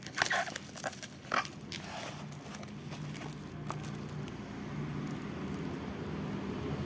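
Plastic parcel wrapping crinkling and tearing as it is pulled open, in sharp crackles for the first two seconds or so. Then a steady low hum that slowly grows louder.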